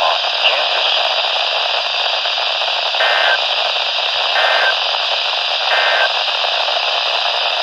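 Radio static hissing steadily from a receiver tuned for Emergency Alert System broadcasts. Three short warbling data bursts at two close pitches come through about three, four and a half and six seconds in, consistent with the repeated SAME header that opens an EAS alert.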